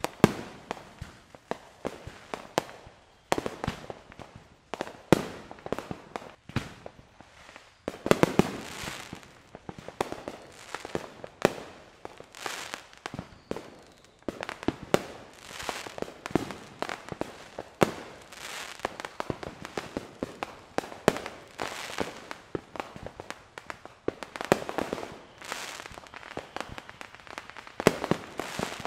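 Fireworks going off in a continuous barrage: many sharp bangs and pops in quick succession, with louder clusters of bursts every few seconds trailing into crackle.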